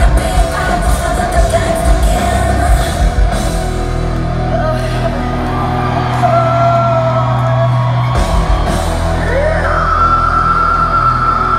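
Live heavy metal band playing, loud: a female singer holds long sung notes over heavy bass and drums, rising to one long high held note near the end.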